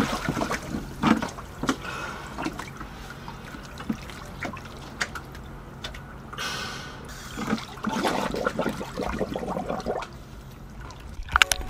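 Water sloshing, splashing and gurgling around a scuba diver moving in the water beside a boat's stern, with irregular small splashes and a louder stretch of sloshing near the end.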